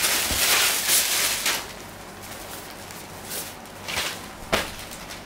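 Clear plastic garment packaging rustling and crinkling as it is handled, loudest for the first second and a half, then a few short crinkles near the end.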